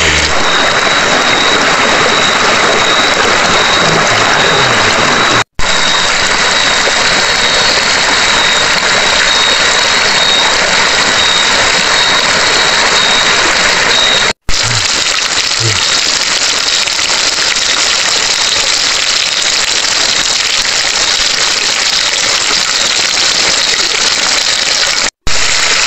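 Shrimp deep-frying in a wok of hot oil: a loud, steady sizzle, broken by three split-second dropouts.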